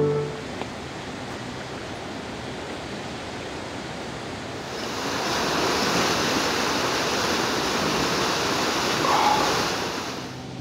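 Steady rush of a fast mountain river, louder from about halfway through and dropping away near the end.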